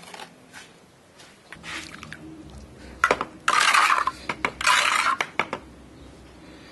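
Metal scoop clinking and scraping against a steel hydraulic-tile mould as red colour paste is poured into it: a sharp clink about three seconds in, then two scrapes of about half a second each.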